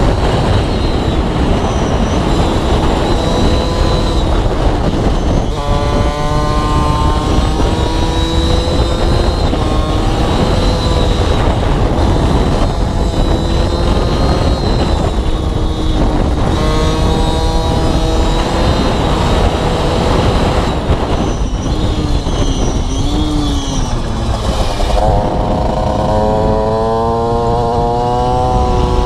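Aprilia RS4 50's two-stroke single-cylinder engine with a Gianelli carbon exhaust, pitch rising as the bike accelerates through each gear and dropping at every shift. Heavy wind rushes over the microphone throughout.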